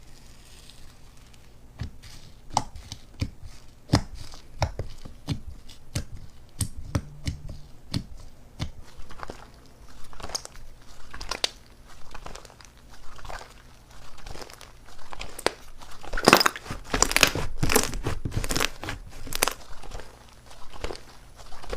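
Slime being squeezed and worked by hand, giving irregular crackles and sharp pops. The crackles come thickest and loudest about three-quarters of the way through.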